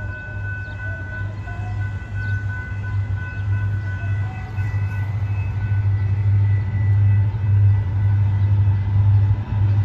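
Low rumble of an approaching Florida East Coast freight train, growing steadily louder, over the steady high ringing of a grade-crossing warning bell.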